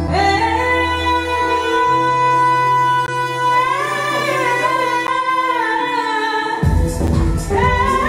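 Live Arabic vocal improvisation: a woman sings a long held note that turns into an ornamented, winding line, over sustained keyboard chords. Near the end a drum beat comes in.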